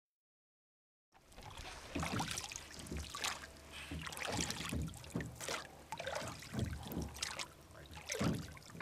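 Water lapping and splashing in irregular surges, starting about a second in after dead silence.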